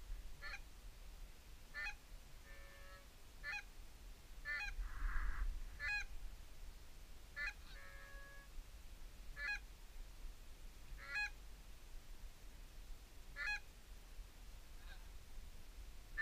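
Canada goose honks: short two-note calls repeated about every one to two seconds, fairly faint.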